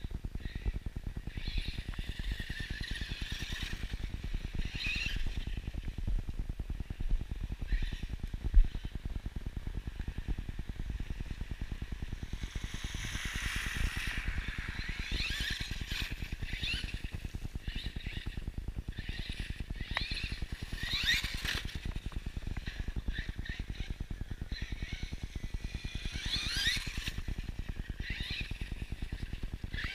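Axial Yeti XL RC car's electric motor and drivetrain whining in short rising runs as it accelerates, over a steady low rumble, with one sharp thump about eight and a half seconds in.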